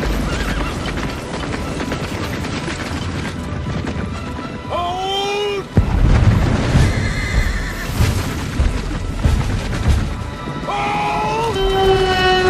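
Horses neighing over dramatic music. Just before six seconds in, a heavy low hit opens a louder, busier passage, and near the end a long held tone comes in.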